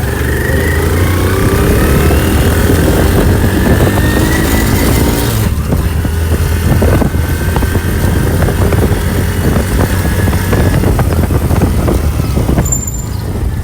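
Motor vehicle engine running with a steady low rumble, its pitch rising slowly over the first five seconds before dropping back and running on evenly.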